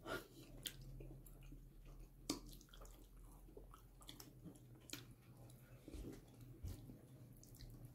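Faint chewing: a person eating, with soft, irregular clicks as the food is chewed.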